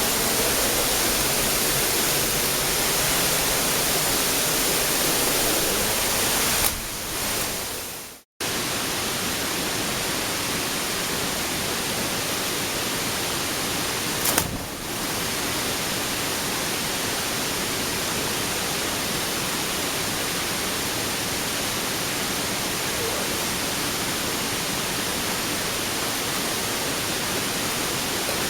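Waterfall's steady rush of falling water, an even hiss with no pitch. It cuts out for a moment about eight seconds in and resumes, with a short knock a few seconds later.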